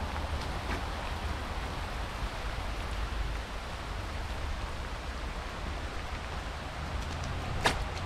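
Steady hiss of rain, with a low rumble of wind on the microphone and one sharp click near the end.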